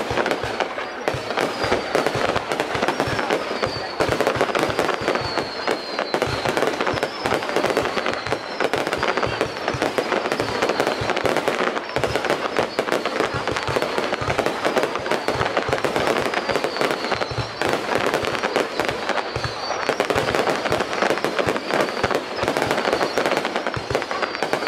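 Fireworks display going off without a break: a dense run of bangs and crackles, with a short high whistle falling in pitch every second or two.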